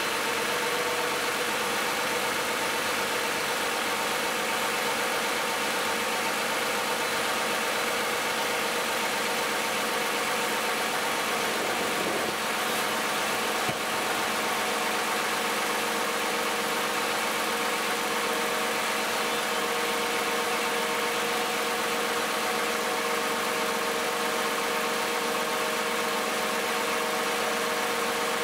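A 2010 Toyota Camry's 2GR-FE 3.5-litre V6 idling steadily while still warming up after a cold start, at about 158,000 miles, heard from in front of the car with the hood up.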